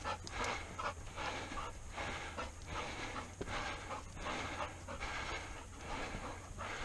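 Golden retriever panting rapidly, about two to three breaths a second, as it climbs stone stairs.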